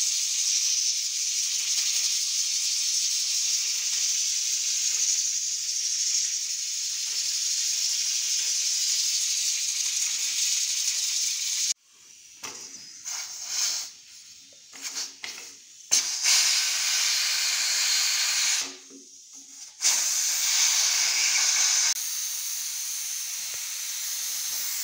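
Aluminium pressure cooker hissing steadily as steam escapes past its weight valve under full pressure. The hiss breaks off suddenly about halfway through, comes back in short spurts, then runs steadily again in two longer stretches.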